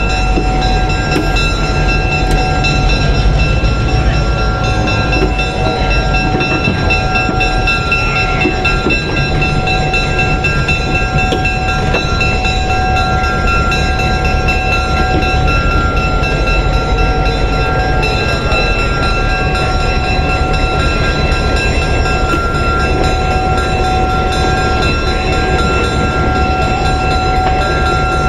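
Alco HH900 switcher's turbocharged diesel engine running steadily, a deep rumble with a steady high whine over it.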